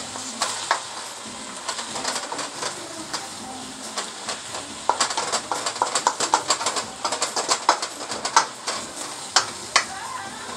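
Callaloo, smoked turkey and shrimp sizzling in a hot pan while a wooden spatula stirs and scrapes through them. The scraping and clatter of the spatula comes thick and fast from about halfway through.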